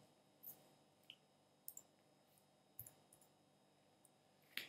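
Near silence broken by a handful of faint, scattered computer keyboard keystrokes.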